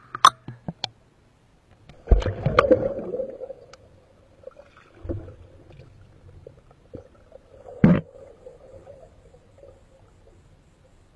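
Water splashing as a spearfisher ducks under about two seconds in, followed by muffled underwater sound with gurgling bubbles and scattered knocks. A single sharp knock stands out near eight seconds.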